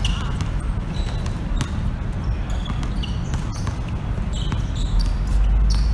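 Basketball bouncing on an outdoor court with scattered thuds and short high sneaker squeaks from players moving, over a steady low rumble that grows louder near the end.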